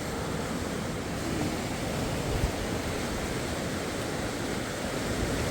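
Rushing river water: a steady, even rush of flowing water close to the microphone.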